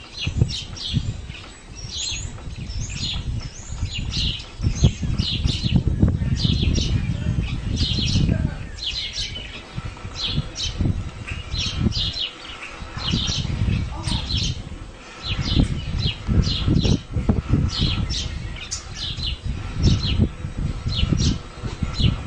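Small birds chirping over and over, short high chirps a few times a second, over a low, uneven rumbling noise.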